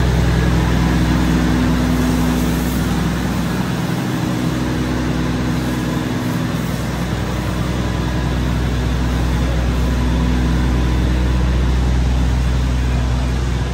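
High-pressure washer spraying water onto a semi truck, a steady hiss, over the steady low hum of an idling engine.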